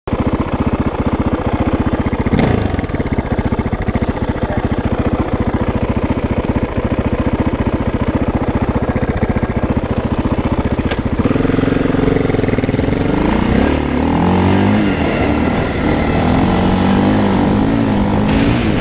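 KTM 640's big single-cylinder four-stroke engine running with a steady rapid thump for about eleven seconds, with one short blip early on. It then revs and pulls away, its pitch rising and falling as the bike accelerates through the gears.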